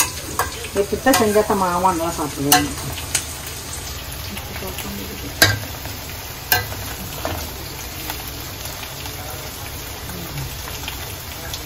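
Metal spoon stirring shredded cabbage stir-fry (cabbage poriyal) in a stainless steel pan, over a steady frying sizzle. Several sharp clicks of the spoon against the pan, most of them in the first seven seconds.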